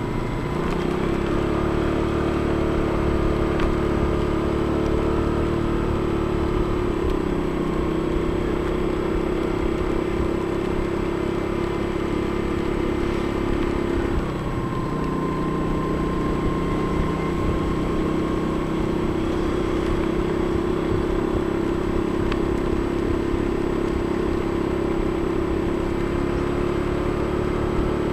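Engine of a slowly driven vehicle running steadily, with a low rumble of road noise underneath; its hum shifts in pitch about a second in and again about halfway through.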